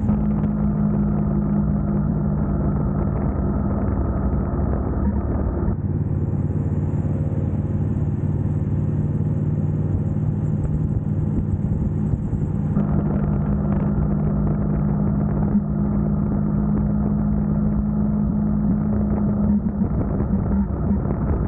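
Motorcycle engine running at a steady cruise, with road and wind noise. The sound changes abruptly about six and again about thirteen seconds in.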